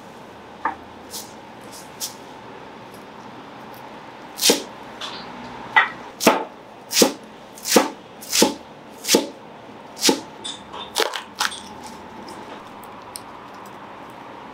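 Large curved knife chopping parsley on a plastic cutting board: a few light knocks, then a steady run of about a dozen sharp chops, roughly one and a half a second, from about four seconds in to about eleven seconds in.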